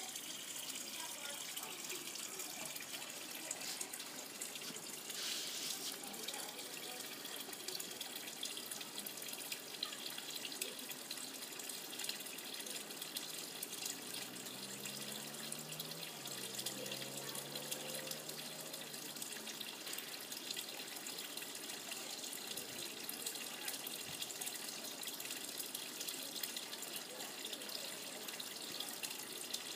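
Steady splashing of water running into a koi pond.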